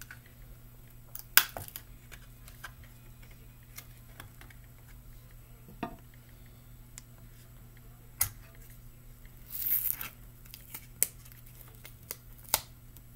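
Scattered sharp clicks and taps of a knife and a metal sardine tin being handled, the loudest about a second in, with a short scraping rustle about ten seconds in. A steady low hum runs underneath.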